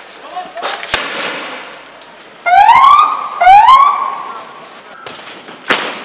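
Two loud rising police-siren whoops about a second apart, with a sharp bang about a second in and another near the end.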